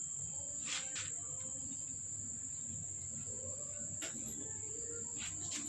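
A steady, high-pitched insect trill, with a few faint clicks scattered through it.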